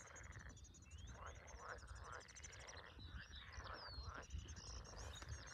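Faint frog chorus: pulsed croaking calls in repeated bursts of about half a second to a second, with birds chirping and trilling high above them.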